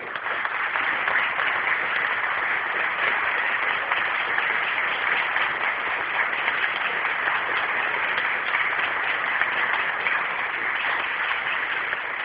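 Audience applauding steadily at the end of an orchestral performance.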